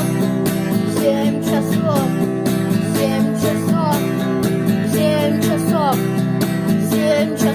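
Instrumental rock passage: a lead electric guitar plays a solo with repeated rising and falling string bends over held rhythm-guitar chords, bass and a steady drum-machine beat.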